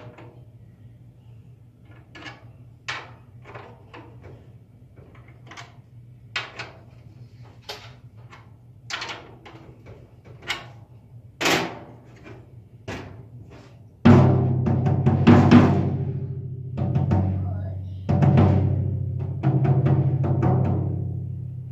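A 12-inch tom tom with a new head being tuned: light taps on the head, each with a short ring, as the pitch is checked. About 14 seconds in, a series of much louder stick hits rings out with a deep, sustained tone.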